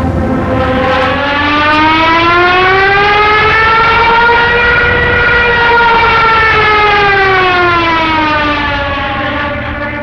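Junkers Ju 87 Stuka's Jericho trumpet, the propeller-driven siren on its undercarriage, sounding in an attack dive: one long wail that rises in pitch for about five seconds and then falls back, over a low rumble.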